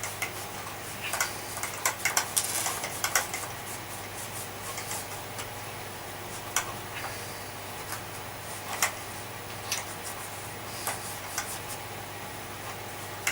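Irregular small clicks, taps and scrapes of hands cleaning a grimy vacuum cleaner's parts: a busy cluster in the first few seconds, then scattered single taps, over a steady low hum.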